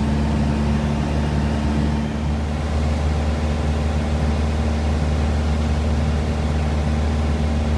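Steady low engine and propeller drone of a single-engine Piper JetPROP turboprop in flight, heard inside the cabin, with several steady hums underneath.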